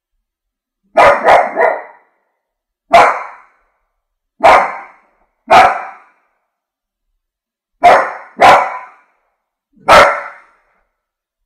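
French bulldog barking: nine sharp barks in loose groups. A quick run of three comes about a second in, then single barks spaced a second or two apart, a pair, and one last bark near the end, with dead silence between.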